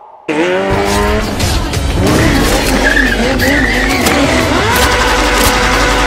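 Motorcycle engine sound effect that cuts in suddenly and revs up with a rising pitch, then runs on at high revs with a wavering note and tyre squeal from the bike skidding.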